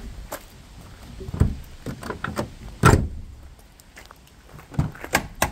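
Footsteps crunching on gravel beside a Land Rover Discovery 2, then a car door being handled and opened near the end, with several separate knocks and clunks.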